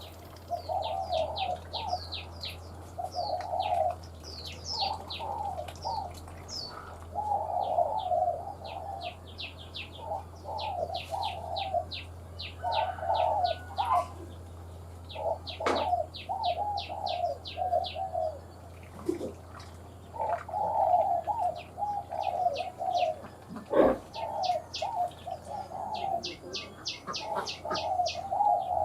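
Spotted dove cooing, its short phrases repeating every second or two. Over it, another small bird chirps in fast runs of thin, high notes.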